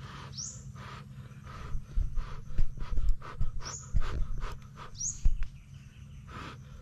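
A person blowing short puffs of breath on a hot roasted banana and biting into it: several breathy puffs and mouth clicks close together from about two seconds in. A bird gives a few short, falling chirps.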